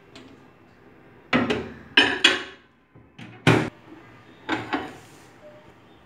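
Several sharp clunks and knocks, about five in all, as a glass dish is handled at a microwave oven and the oven door is worked.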